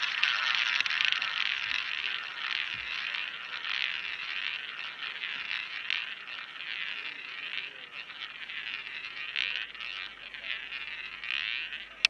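Roulette ball rolling around the track of a spinning roulette wheel: a steady rolling whir that slowly grows quieter as the ball loses speed.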